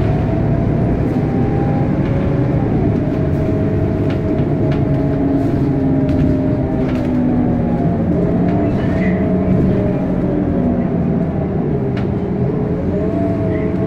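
Inside a moving road vehicle: a steady engine and road rumble, with a whine that slowly rises and falls in pitch as the speed changes.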